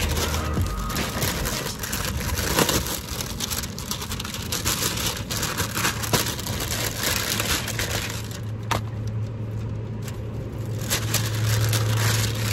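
Thin plastic shopping bag rustling and crinkling close to the microphone as a hand rummages inside it. A low steady hum comes in about halfway through and grows near the end.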